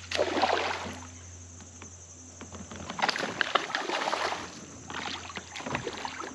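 Hooked largemouth bass splashing at the water's surface beside a kayak. It comes in bursts: during the first second, again from about three to four seconds in, and briefly just after five seconds.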